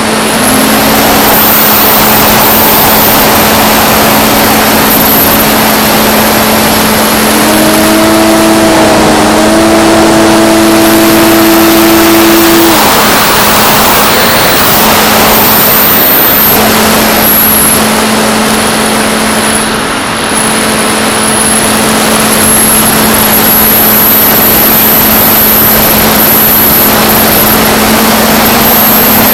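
Electric motor and propeller of a Mako foam flying wing running in flight, recorded onboard: a steady motor drone with a very high whine that rises and falls several times, over a loud rush of air noise.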